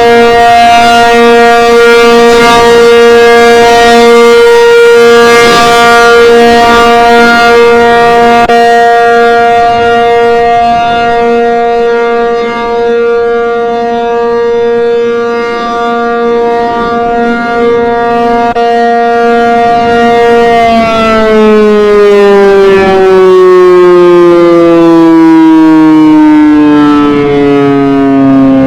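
ACA P50 electromechanical outdoor warning siren sounding a loud, steady tone, then shutting off about two-thirds of the way through and winding down, its pitch falling slowly as the rotor coasts.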